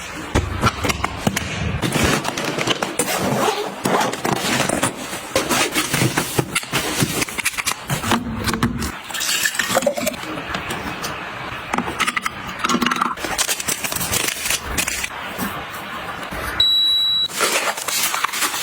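Busy clicking, knocking and scraping of objects being handled, with one short high electronic beep near the end.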